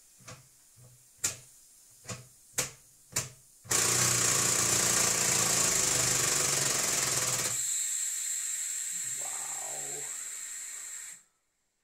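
3D-printed opposed-piston compressed-air engine: a few sharp clicks as it is flicked over by hand, then about three and a half seconds in it catches and runs fast with a loud rapid chatter and air hiss. After about four seconds the chatter stops and a high steady hiss of air leaking from the pressure-bottle hookup fades, cutting off sharply near the end.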